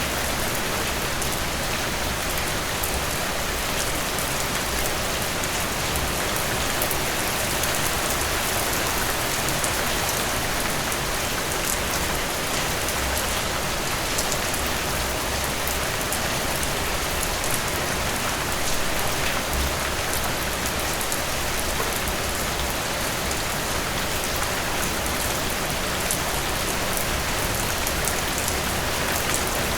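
Steady rain falling, a continuous even hiss with many fine drop ticks and no let-up.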